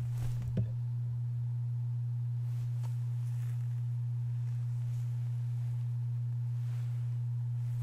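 Steady low hum, a single unchanging tone, with a short knock about half a second in.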